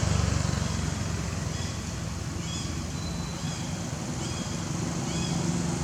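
A motor vehicle's engine running, with short high chirps repeating over it.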